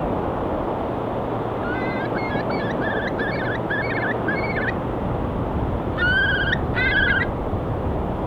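Steady rush of ocean waves with a seagull calling over it: a quick run of short calls, then two longer calls near the end.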